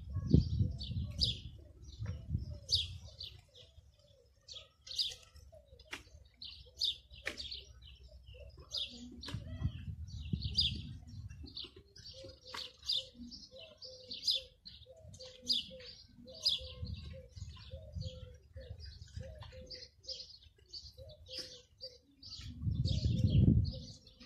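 Small birds chirping and twittering continuously, many short high calls a second. A low rumble swells and fades three times, and there are a few sharp knocks.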